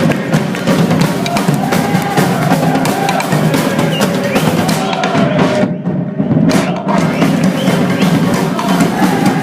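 Music with busy drums and percussion, a quick clicking rhythm over a steady low beat; the highs drop out briefly past the middle.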